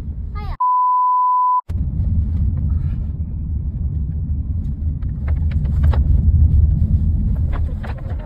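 A steady high censor beep, about a second long, with all other sound muted beneath it, then the low steady rumble of a car's cabin on the move, with a few faint clicks near the end. The beep is the loudest thing.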